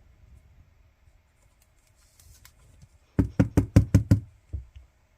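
Rapid knocking, about seven dull knocks within a second, then one more half a second later.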